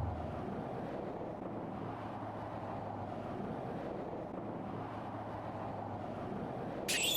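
Steady road and wind noise from a car travelling on an expressway, with a low steady hum underneath. A high, wavering tone starts just before the end.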